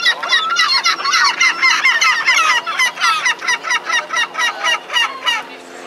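Gulls calling in a fast series of short, shrill cries, about four or five a second, which stop shortly before the end.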